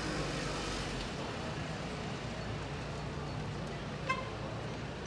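Steady outdoor hum of a large gathered crowd and street traffic, with no clear words. One very short, high beep about four seconds in.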